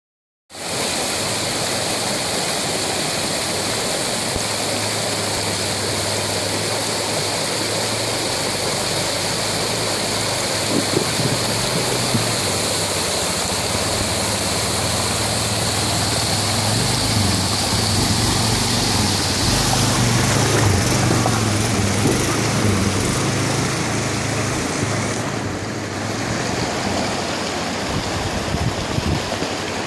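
Rushing mountain stream with a Suzuki KingQuad 750 ATV's single-cylinder engine running under it as the quad crawls over rocks through the water. The engine grows louder and busier about two-thirds of the way through.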